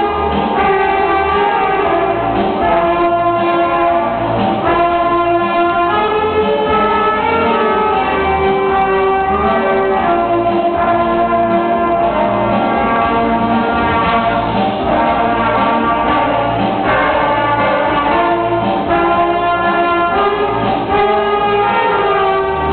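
Small school band of saxophones with a trumpet playing a tune together in held notes that change every second or two.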